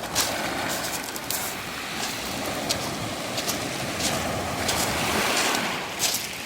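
Surf washing up a beach of round mongdol pebbles, the wash swelling about four seconds in, with footsteps crunching on the pebbles roughly once a second.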